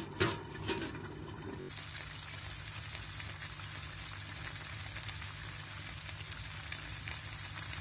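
A few short knocks as the aluminium pot lid is handled, then chicken pulao cooking in the pot on high flame: a steady hiss of bubbling rice and gravy over a constant low hum.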